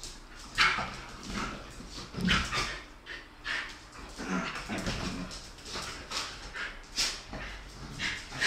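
Two dogs play-fighting, giving a string of short yips, whines and brief growls.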